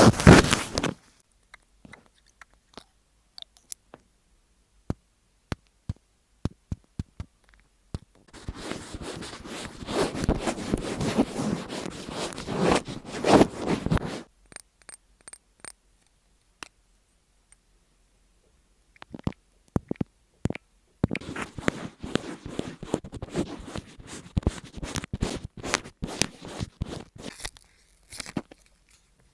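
Close crunching and scraping noises with scattered sharp clicks: a dense run of scraping about a third of the way in, a quiet stretch, then more clicks and crunching in the second half.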